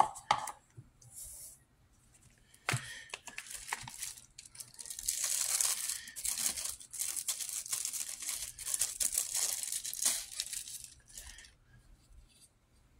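Clear plastic bag around a new folding knife crinkling as the knife is worked out of it, from about three seconds in until near the end. A sharp knock at the very start as the cardboard box lid is set down.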